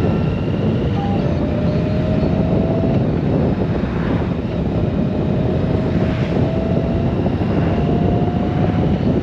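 Honda Gold Wing's flat-six engine running at cruising speed under steady wind and road noise, with a faint tone that slowly rises in pitch. An oncoming car passes about four seconds in.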